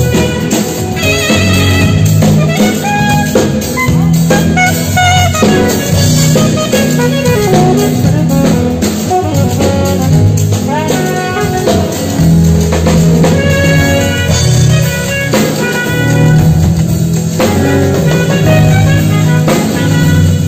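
Saxophone playing a melody over drums and a bass line, with a few pitch bends about ten seconds in.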